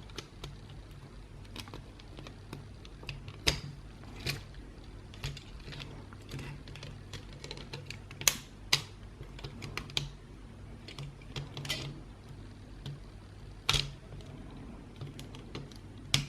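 Irregular plastic clicks and taps from an Xbox One controller's casing and shoulder button being handled and prised off, with a few sharper snaps about three and a half, eight and a half, and fourteen seconds in.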